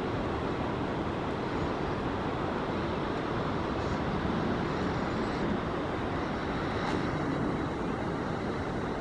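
Steady wind rushing and buffeting across the camera microphone, a continuous rumbling hiss with no breaks.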